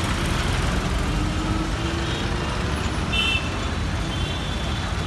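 Mixed city road traffic: car, tractor and two-wheeler engines running in a dense rumble. A short vehicle horn toot sounds about three seconds in, followed by fainter honking.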